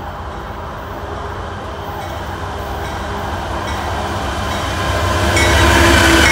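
Freight train led by Norfolk Southern diesel locomotives approaching and passing close by, the engines' low rumble growing steadily louder and swelling sharply about five seconds in as the lead units go by.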